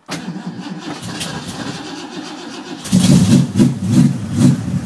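Ford 351 Windsor V8 cranked on the starter for about three seconds, then catching and firing into a loud, uneven run. A cold start at −7 °C on choke after two months standing, heard from inside the car's cabin.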